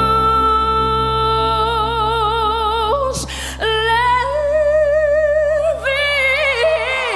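A woman belting a ballad into a microphone over a sustained backing track: a long held note that widens into vibrato, a quick breath about three seconds in, then another held phrase with strong vibrato. The low backing drops out just before the end.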